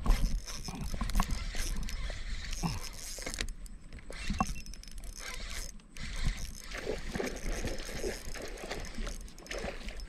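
Spinning reel being cranked to retrieve a lure, its gears whirring with many small clicks and rattles.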